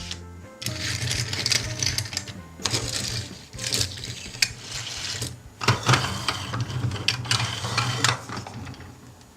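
Irregular clicking and rattling of small hard objects being handled, over a steady low hum.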